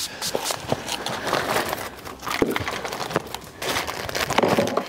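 Makeup items being handled at a trolley: rustling and crinkling with scattered light clicks, the rustling growing busier near the end.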